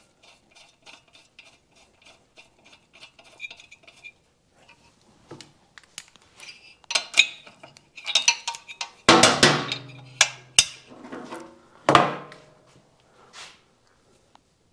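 A ratchet wrench clicking in quick, even strokes, about five a second, as a spark plug is screwed back into a motorcycle engine. After that come metal tool clinks and clanks, the loudest about nine and twelve seconds in.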